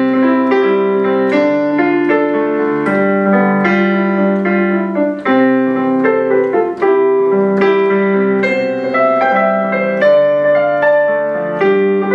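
Piano music: a steady succession of struck notes and held chords.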